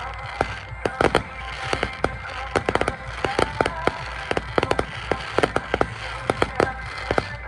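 Fireworks display: rapid crackling and popping of many small bursts, several sharp cracks a second, over a steady low rumble.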